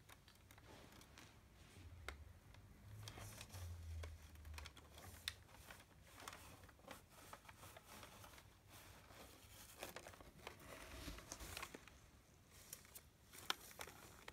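Crumpled packing paper inside a cardboard box crinkling and rustling faintly as a cat moves about in it, with scattered crackles and one sharper click near the end.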